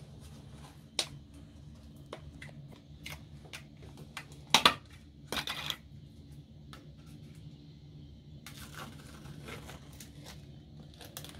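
Handling noises: scattered light clicks, a sharper click about a second in, and two short crinkly rasps about four and a half and five and a half seconds in, as plastic packaging is opened.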